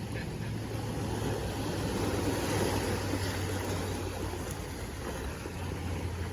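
Sea noise: a steady wash of water with a low, steady hum underneath, swelling slightly about two seconds in.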